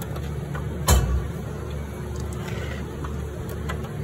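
A steel toolbox drawer is pushed shut with a single thump about a second in, followed by a few faint clicks, over a steady low background hum.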